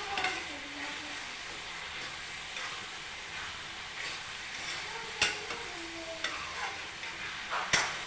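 Tori (gourd) sabzi frying in a pan with a steady sizzle, while a spatula knocks against the pan a few times, the sharpest knock near the end.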